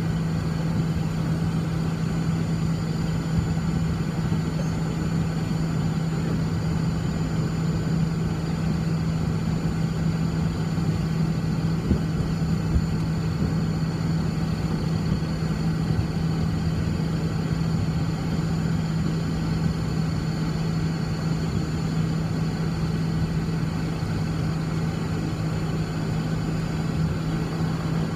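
Cessna 340's twin turbocharged six-cylinder piston engines running at steady low taxi power, a constant deep hum with no rise in power, heard from inside the cockpit.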